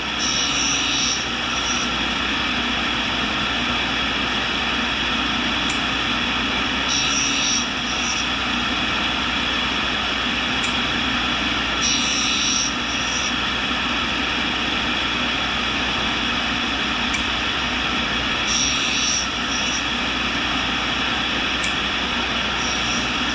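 Tool and cutter grinder's wheel running steadily while the end of a high-speed steel roughing end mill is ground, with a short hissing grinding pass about every five to six seconds as the cutting edge is drawn across the wheel.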